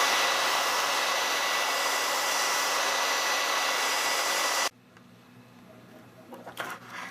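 Hair dryer blowing steadily with a faint whine in it, heating the iPod's back to soften the battery adhesive. It switches off suddenly about four and a half seconds in, followed by a few faint clicks near the end.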